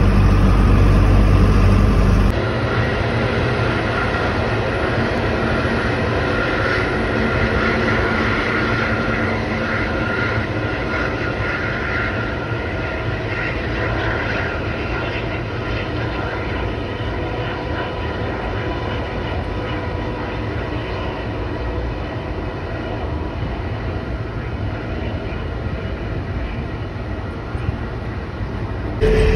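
Jet engines of an Airbus A320 on the ground, running with a steady rush and a high whine. A louder, deeper stretch in the first two seconds ends at an abrupt cut.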